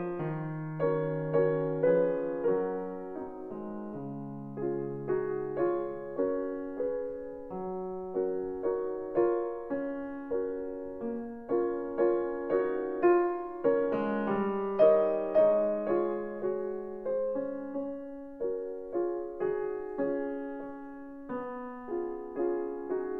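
Background music: a slow, gentle piano piece with single notes over held bass notes.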